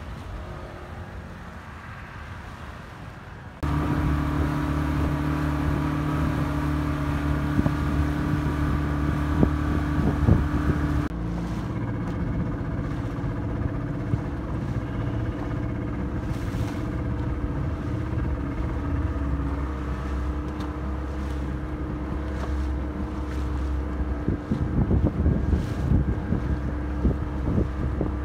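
A small boat's outboard motor running: faint at first, then loud and close from about three and a half seconds in, a steady drone whose note drops about eleven seconds in.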